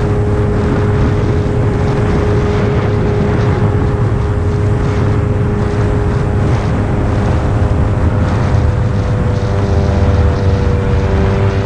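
Motorcycle engine running steadily at cruising speed, heard from on board the bike, with a single held engine note over a low rumble.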